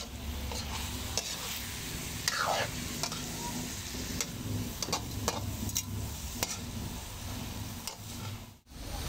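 Spatula scraping and clacking against a metal wok while stir-frying sautéed bitter melon (ampalaya) with egg, with oil sizzling underneath. There are irregular clicks and scrapes. The sound cuts out briefly near the end.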